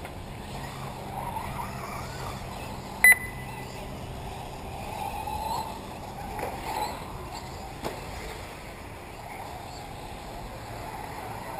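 Radio-controlled off-road model cars running on a dirt track, their motor whine rising and falling in pitch as they speed up and slow down. A short, loud electronic beep sounds about three seconds in.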